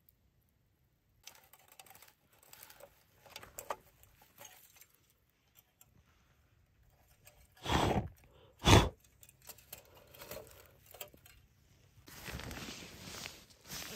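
Small handling noises, rustles and light clicks, with two loud short thumps about eight seconds in, a second apart, and a stretch of rustling near the end.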